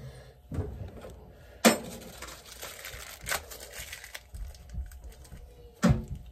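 Electrical hardware and tools being handled at a metal junction box: three sharp clicks or knocks, strong ones about a second and a half in and near the end with a lighter one between, over faint rustling.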